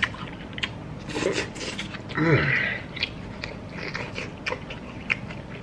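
Close-up chewing and lip-smacking of a person eating a big mouthful of chicken and lamb over rice, short wet clicks throughout. Twice, about a second and two seconds in, a brief hum of the voice falls in pitch.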